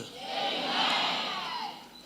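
Church congregation calling out together in response, many voices at once, swelling and fading over about a second and a half.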